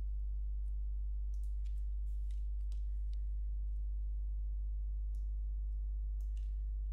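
A steady low hum with a stack of even overtones, and a few faint clicks scattered through it.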